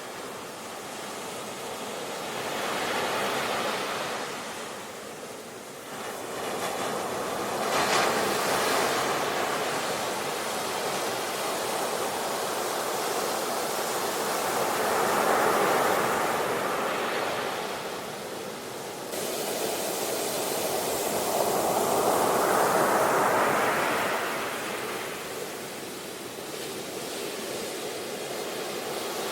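Ocean waves breaking on a shore, the surf swelling and falling back in about four surges, with one sharper crash about eight seconds in.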